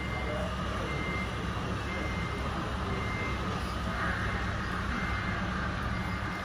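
Reversing beeper of a scale RC truck, beeping about once a second over a steady low engine sound from its sound module.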